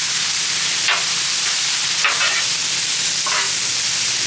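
Corn and bacon sizzling in bacon grease on a hot Blackstone steel griddle, with a metal spatula scraping and turning the food across the flat top three times, about a second apart.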